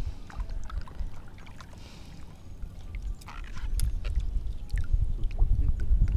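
Water sloshing and splashing around a wading angler as a hooked fish is brought in on the rod, over a steady low rumble, with a few short splashes and clicks, the clearest about three seconds in.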